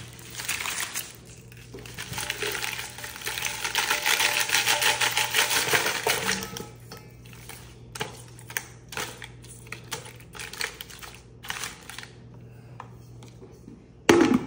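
Plastic-wrapped freezer pops crinkling and clattering as they are loaded by hand into a stainless steel bowl: a dense run of crinkling and rattling for a few seconds, then scattered clicks and taps. Near the end the lid is set on the bowl with one loud knock.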